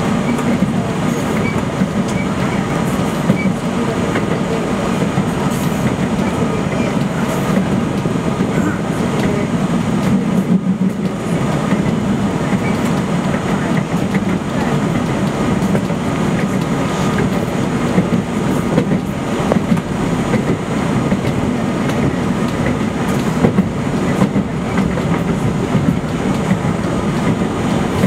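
New York City Subway A train running along the track, heard from inside the front car: a steady rumble of wheels on rail with rapid clicks over the rail joints.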